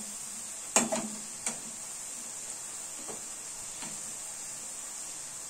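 Sliced onions frying in hot oil in a steel kadai, a steady sizzle, with a few sharp clicks of a metal slotted spoon against the pan about a second in and fainter taps later. The onions are frying toward golden brown.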